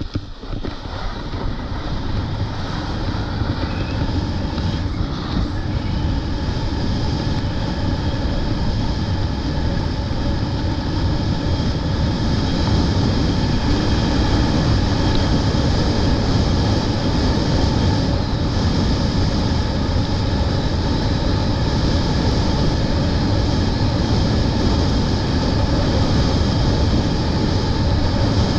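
Wind rushing over the microphone and the hiss of sliding fast over groomed snow on a downhill run. It grows louder over the first ten seconds or so as the speed builds, then holds steady.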